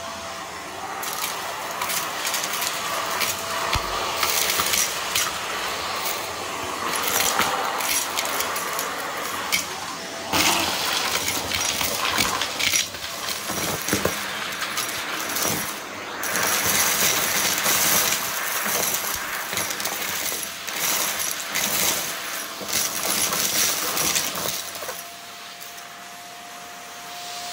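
Small hard bits of debris rattling and clattering, with many sharp irregular clicks and a faint steady hum under them at times.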